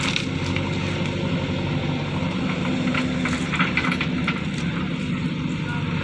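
Backhoe loader's diesel engine running steadily, with short intermittent clanks and rattles over it.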